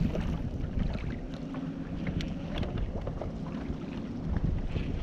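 Boat motor running with a steady low hum, wind buffeting the microphone, and a few light knocks.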